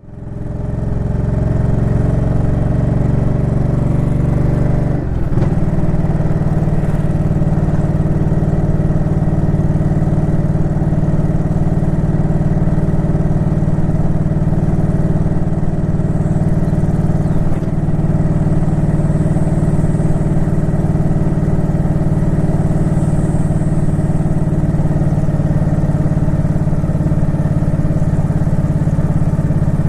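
Suzuki Intruder Classic 400's V-twin engine running at a steady speed. About five seconds in its pitch dips briefly, then it holds steady again.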